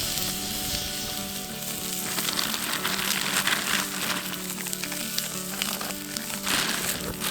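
Food sizzling and crackling as it fries in a hot pan, with background music underneath.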